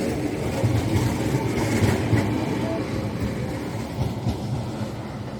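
Rail vehicle running along the track with a low rumble and a few wheel knocks, its sound slowly fading as it moves away.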